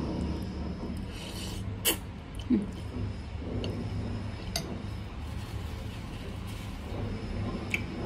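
A person slurping and eating noodles in broth, with a few sharp clinks of fork and spoon against the bowl, over a steady low hum.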